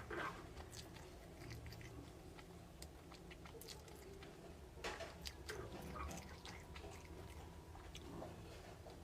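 Close-miked chewing and wet mouth sounds of someone eating soft crepe cake: irregular small smacks and clicks, with louder bites right at the start and about five seconds in.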